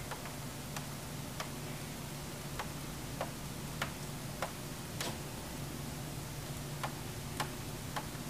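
A regular ticking, a sharp click roughly every 0.6 seconds, over a steady low hum.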